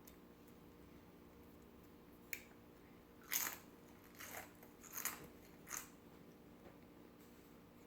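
Potato chips being bitten and chewed: about five short, sharp crunches, a second or less apart.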